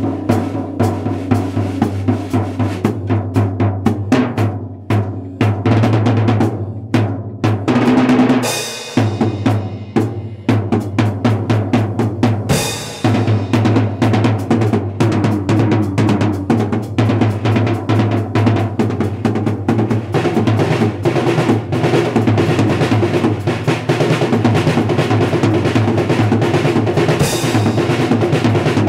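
Drum kit solo played fast and busy with sticks: dense rolls and strikes across snare, toms and bass drum. Crash cymbal hits come about a third of the way in, again near the middle, and near the end.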